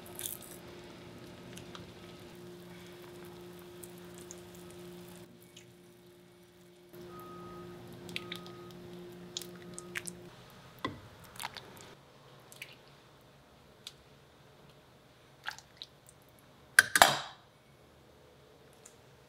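Kitchen sounds of serving soup from a stainless steel pot: a steady hum that stops about ten seconds in, light clinks of a metal ladle against the pot with a little splashing of liquid, and one short, louder clatter near the end.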